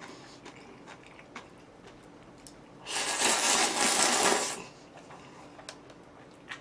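Black-bean sauce noodles slurped up in one long, loud draw about three seconds in, lasting under two seconds, with a few light clicks of chopsticks or tableware before and after.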